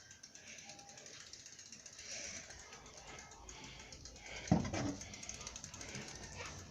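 A BMX bike's freewheel hub clicking rapidly as the wheel turns, with one louder thump about four and a half seconds in.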